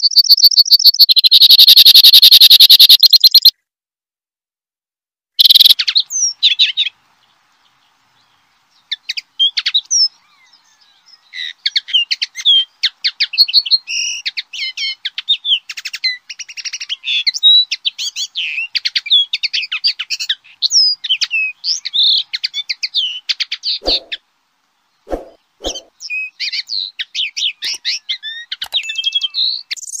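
Recorded songbird song. It opens with a loud, very fast trill that stops after about three and a half seconds. A short burst follows, then a long, varied twittering song of rapid chirps and whistled notes sliding up and down.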